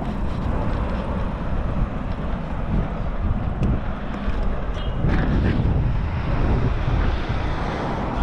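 Wind rumbling and buffeting on the microphone over the steady noise of road traffic passing on a bridge.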